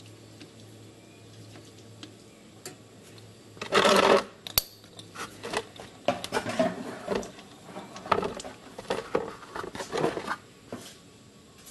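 A socket wrench with a 17 mm socket working the oil drain plug on a Kawasaki Bayou 300 ATV: a short loud burst of noise about four seconds in, a sharp click, then several seconds of irregular metallic clicks and clatter.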